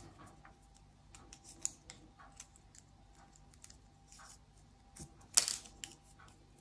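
Faint, irregular clicks and rustles of a 2 mm crochet hook pulling yarn through stitches, with one louder, brief scratch about five seconds in.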